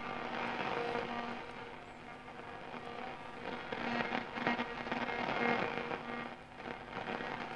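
Schaub-Lorenz Goldy 58 tube radio's loudspeaker on shortwave, giving crackling static with faint, weak traces of signal as the set is tuned. This is the very poor sensitivity of the set on that band.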